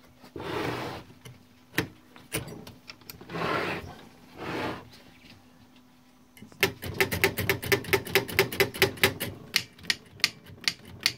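Freshly restored 1912 Mercedes No. 3 typewriter being tried out. First come a few scattered key strikes and three longer noisy sounds. Then, from about six and a half seconds in, a fast, even run of keystrokes, about five a second.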